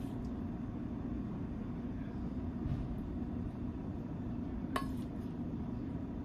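A spoon clinks once against a stainless steel mixing bowl while cooked ground beef is scooped out, a short sharp knock with a brief ring near the end, over a steady low rumble.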